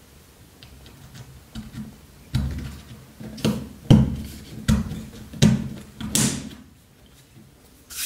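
Small Victorinox Cadet knife parts handled and pressed onto pins on a rubber-topped work board: a run of about six dull knocks with sharp clicks in the middle stretch, the loudest about four seconds in.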